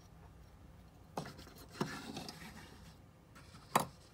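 Handling noise from a small die-cast metal toy jet turned in the fingers: quiet rubbing and scraping, with a few small clicks and a sharper click near the end.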